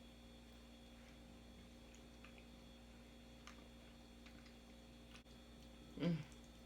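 Faint mouth clicks from someone eating, over a steady low hum, with one short louder mouth sound about six seconds in.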